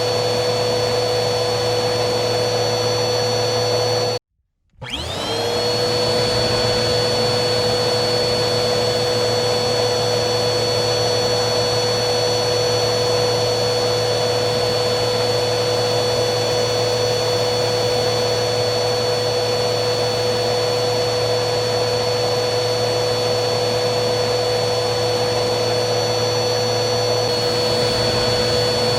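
Vacuum cleaner running steadily with a constant whine over its airflow noise. About four seconds in it cuts out for half a second, then comes back with the motor whine quickly rising to its steady pitch.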